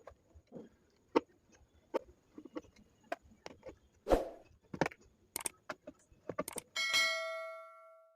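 Scattered clicks and knocks of screws being undone by hand from a home theater subwoofer's cabinet. Near the end a metal piece rings out once, fading over about a second.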